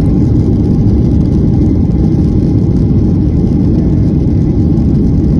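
Loud, steady low rumble inside the cabin of a Boeing 737NG airliner rolling along the runway after touchdown.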